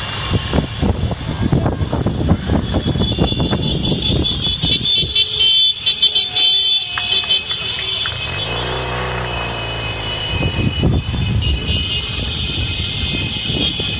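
Motor scooters riding past one after another, their small engines running and revving. One engine note stands out clearly for a couple of seconds past the middle.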